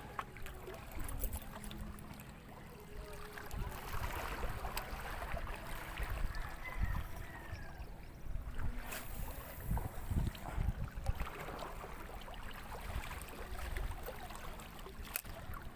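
Seashore ambience: wind buffeting the microphone in low gusts over a soft wash of water on the rocks, with a couple of sharp clicks.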